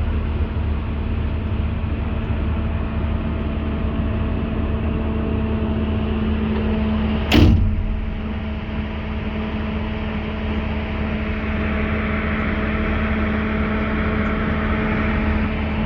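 Excavator diesel engine running steadily, with a single loud bang about halfway through.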